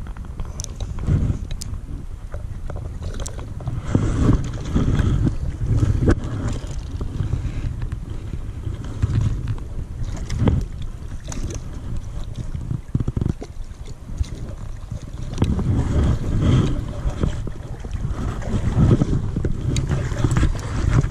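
Wind buffeting the microphone, with water sloshing and splashing close by in irregular surges.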